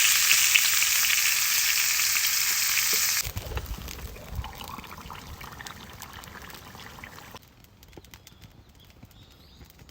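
Food sizzling loudly as it fries in hot fat, cutting off abruptly about three seconds in. After that, much quieter sound with scattered faint crackles and clicks.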